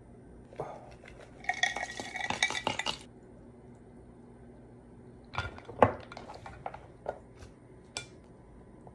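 Seasoning shaken out of a plastic tub into a glass mixing bowl, a dense rattle for about a second and a half, followed by scattered clinks and knocks against the glass bowl as ingredients are added and stirred. The sharpest clink comes about six seconds in.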